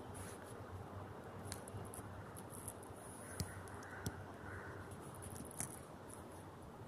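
Faint outdoor background noise, with a high hiss that comes and goes and a few short, sharp clicks partway through.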